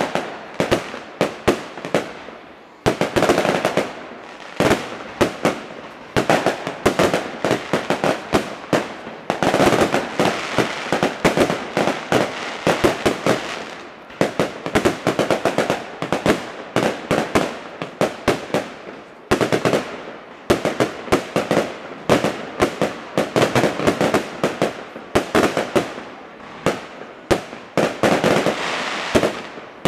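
Fireworks display: aerial shells bursting one after another with many bangs close together and dense crackling between them, the volleys picking up in waves.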